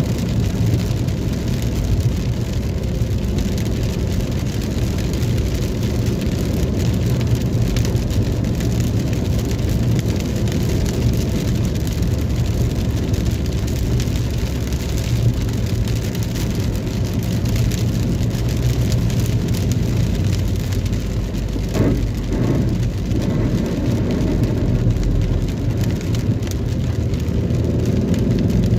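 Steady rain on a moving car, with a constant low rumble of road and engine noise beneath it; a brief knock-like sound about three quarters of the way through.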